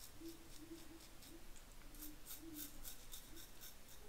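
Mulcuto slant safety razor scraping through lathered stubble in short, quick strokes, about four a second.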